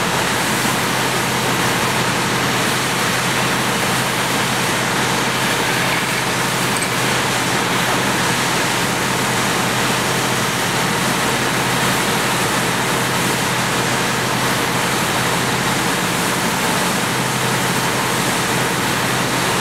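Fire engine running steadily with its pump engaged to supply the hose line: a constant rushing noise over a low, even hum that does not change.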